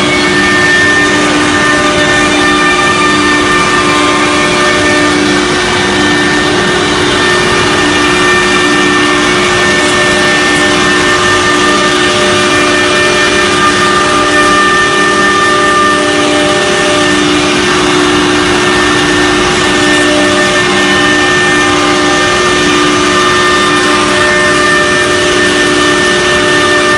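CNC router's 6 kW HSD spindle running at a steady speed: a constant high whine over a dense, even mechanical noise, loud and unchanging throughout.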